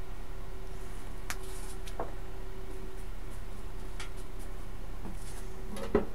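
Steady electrical hum of TIG-welding equipment, with a few light clicks and taps of metal being handled and one sharper knock near the end.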